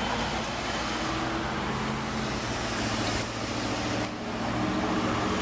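Road traffic: a vehicle's engine running close by, a steady low hum over the hiss of road noise.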